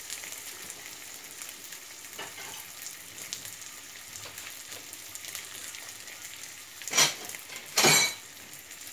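Sesame-crusted tuna steak sizzling steadily in a nonstick frying pan, with two short, louder clatters about a second apart near the end.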